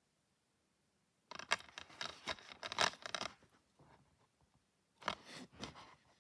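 Shrink-wrapped plastic DVD case handled and turned over in the hands: crinkling and scraping of the plastic in two bouts, the first starting about a second in and lasting about two seconds, the second shorter one near the end.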